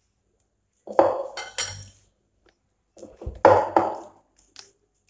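Dishes and utensils clattering and scraping on the kitchen counter, in two bursts of about a second each: one about a second in, the other past the middle.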